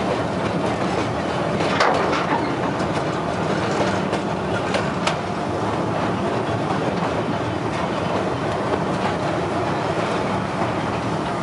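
Amusement-park passenger train running along the track, heard from an open car: a steady rumble of wheels on the rails, with a few sharp clicks as the wheels pass over rail joints, the clearest about five seconds in.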